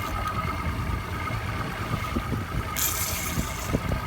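Fishing boat's engine running steadily with a low rumble and a thin whine, and a brief burst of hiss about three seconds in.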